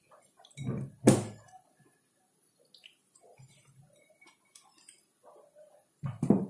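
Dishes and utensils knocking and clinking as a salad is plated, with the loudest knock about a second in and another pair of knocks near the end, and faint small taps in between.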